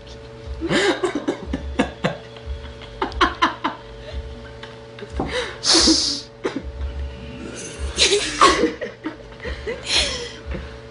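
People laughing and giggling in short fits, with a few brief, sharp, breathy bursts in between.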